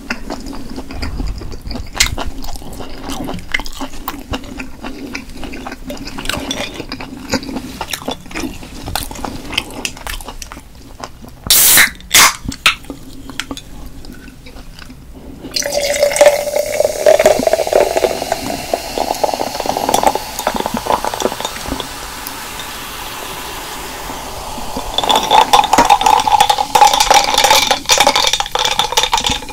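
Close-miked eating sounds, clicks and wet mouth noises, then from about halfway a drink being poured into a glass with a steady hiss, heavier again near the end.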